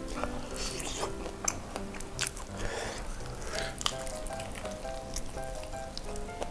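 Crunchy bites and chewing of a crispy fried chicken drumstick, with sharp crackles now and then, over soft background music.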